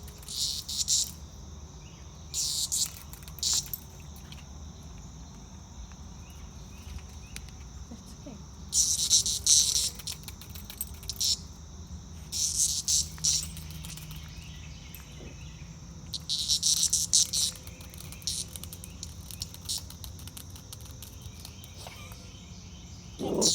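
A torpid cicada buzzing in short bursts of about a second, seven or so times, with pauses of a few seconds between them. A faint steady high hum runs underneath.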